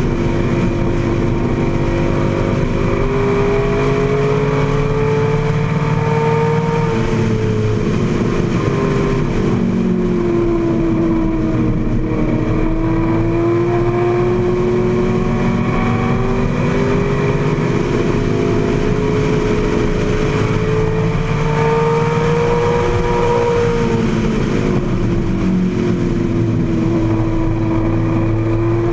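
AC Cobra's Ford V8 engine at race pace, heard from the open cockpit. Its note rises and falls smoothly with the throttle, dropping back about ten seconds in and again near the end before climbing once more.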